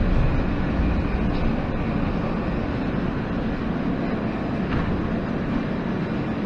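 Steady low rumble inside a New York City Subway J train car.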